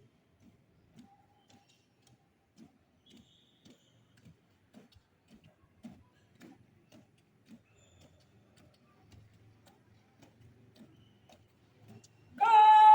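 Faint, even footfalls of cadets marching in step, about two a second. Near the end a loud, drawn-out shouted drill command breaks in.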